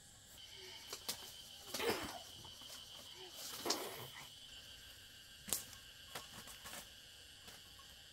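A steady high insect buzz starting about half a second in, with a handful of sharp knocks and clicks scattered through it, the loudest about two, three and a half and five and a half seconds in.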